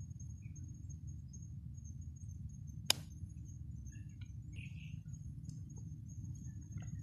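Faint rustling and soft clicks of hands handling leaves and sticky mud, with one sharp click about three seconds in. Under it a low steady rumble and a thin, steady high insect tone.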